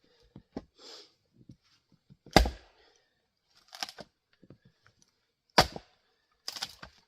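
Axe strikes splitting grand fir rounds on a chopping block: two sharp, heavy blows about three seconds apart, the first the loudest, with lighter knocks of wood in between and after.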